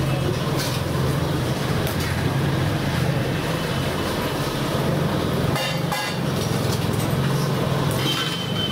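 Steady roadside traffic din with a low engine hum. A short pitched honk comes about six seconds in, and a held high horn note near the end.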